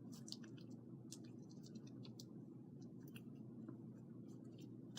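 Faint, irregular clicks and snips of scissors working at a tough hacky sack's fabric and filling, over a low steady room hum.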